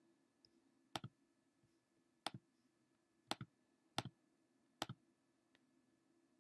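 Computer mouse button clicked five times, spread unevenly over about four seconds. Each click is a faint, quick press-and-release pair of ticks.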